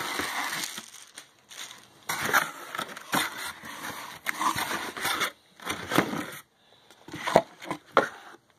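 Plastic packing material and cardboard rustling and crinkling as a boxed product is dug out of a shipping carton, in irregular bursts, with a couple of sharp knocks near the end.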